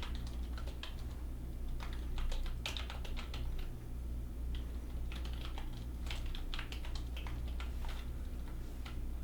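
Typing on a computer keyboard: irregular runs of keystroke clicks, over a low steady hum.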